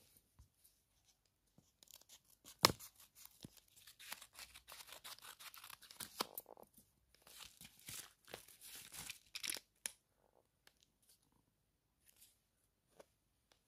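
Scissors cutting open a padded mailer envelope, the packaging crinkling and crackling, with one sharp click about two and a half seconds in. The crackling thins out to a few small clicks after about ten seconds.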